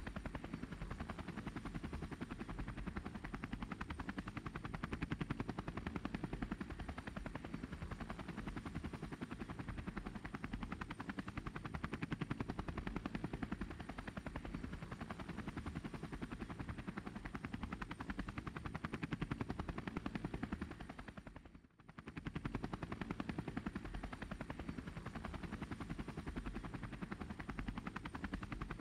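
Helicopter rotor chop: a steady, fast, even beat of blade slaps that briefly fades out and comes back about three-quarters of the way through.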